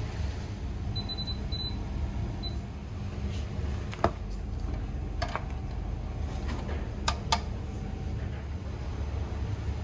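Kitchen room tone: a steady low hum, a few short high beeps about a second in, and four sharp clicks and knocks from work at the counter, the loudest about four seconds in.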